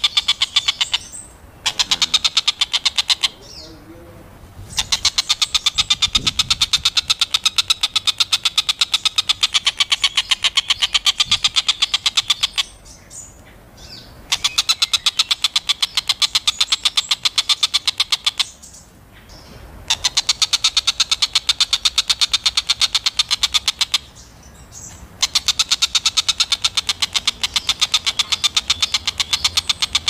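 Oriental dollarbird chattering: long runs of rapid, evenly repeated notes lasting several seconds each, broken by short pauses of about a second, four breaks in all.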